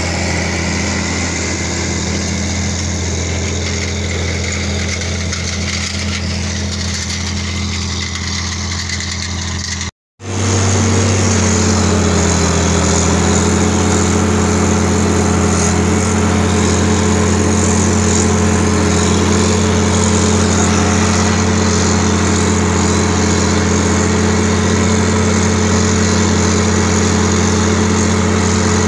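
John Deere 4620 tractor's six-cylinder diesel engine running steadily under load while pulling a soil finisher, a continuous low drone. It cuts out briefly about ten seconds in, then returns louder and closer, heard from the operator's seat.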